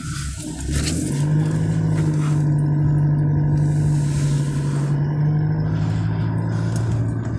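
Car's engine and road noise heard from inside the cabin while driving slowly: a steady low hum that settles in about a second in, with patches of hiss over it.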